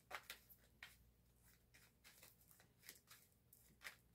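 Faint, soft snaps and rustles of a small tarot deck being shuffled by hand, a scattering of separate light clicks.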